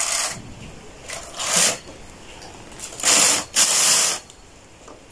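Knitting machine carriage being pushed across the needle bed, knitting a row: noisy sweeps, a short one at the start, another about a second and a half in, and the longest and loudest about three seconds in.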